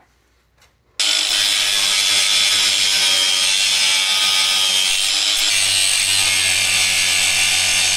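Corded angle grinder running at full speed, its disc cutting metal and throwing sparks: a steady whine over a rasping hiss that starts abruptly about a second in.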